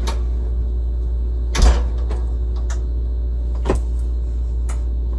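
A few short knocks and clunks over a steady low hum, the loudest a thump about one and a half seconds in, like a cupboard or door being handled in a kitchen.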